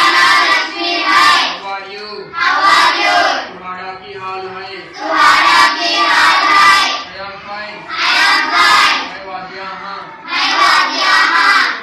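A class of schoolchildren reciting phrases loudly in unison, in a sing-song chant, about five times. Between the responses a single quieter voice leads each phrase, as in a call-and-response language drill.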